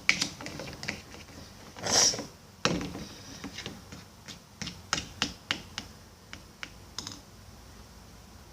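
Irregular sharp clicks and taps of a spoon against a bowl as a shampoo-and-salt slime is stirred. The loudest knock comes about two seconds in, and the taps thin out near the end.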